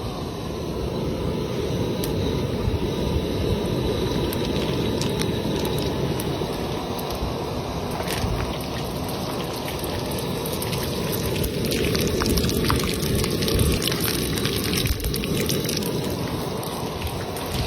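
Water running steadily with splashing and small clicks, like a tap running into a sink.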